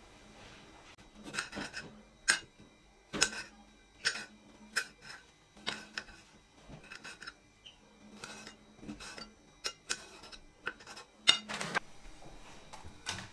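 Kitchen knife cutting a tomato on a ceramic plate: irregular clicks and taps of the blade striking the plate. Near the end, a louder clatter as the plate is tipped over a frying pan and the tomato pieces go in.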